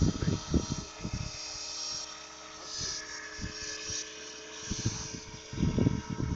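Radio-controlled scale model helicopter flying, its motor and rotor giving a steady whine of several held tones. Gusts of wind buffet the microphone at the start and again near the end.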